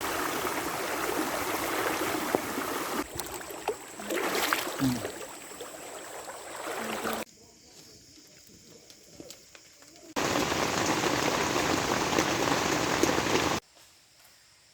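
Steady rain hiss that starts and stops abruptly several times: loud at the start, dropping away sharply about seven seconds in, back at full strength about ten seconds in, and cut off again near the end.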